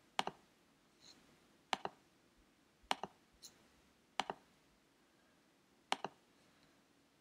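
Computer mouse button clicking as items in a drop-down menu are opened and chosen: about six short, sharp clicks spaced a second or so apart, several of them in quick double pairs.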